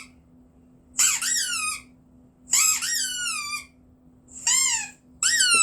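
Squeaky dog toy squeezed four times, each squeak a high whistle that bends up and falls away; the last one starts near the end and holds steady.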